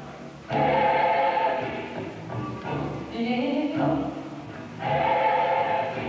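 Choir singing slow, held chords, with a new loud chord coming in about half a second in and again near the end.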